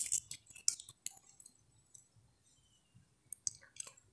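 Faint scattered clicks: a quick cluster in the first second, then a few more near the end.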